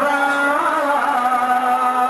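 A male voice singing a Sufi zikr chant, holding one long note with a short wavering ornament about half a second in.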